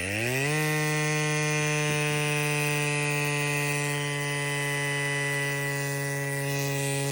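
FLEXTAIL Ultra-Mini electric air compressor pumping up a bicycle tyre. Its motor spins up with a rising whine over about half a second, then runs with a steady buzzing hum, and it cuts off suddenly at the end.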